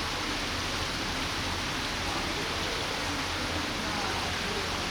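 A steady, even rushing hiss at a constant level, with faint indistinct voices under it.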